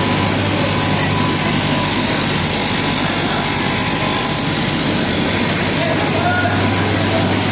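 Straight-knife fabric cutting machine running steadily, its electric motor and vertical reciprocating blade cutting through a stack of 100% cotton fleece.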